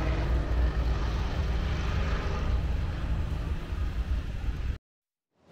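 Car engine running with a steady low rumble. The sound cuts off suddenly about a second before the end.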